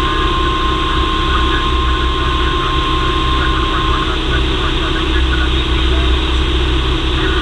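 The Cessna 172M's four-cylinder Lycoming engine and propeller drone steadily in flight, heard from inside the cabin. A steady high tone runs along with it and stops about four seconds in.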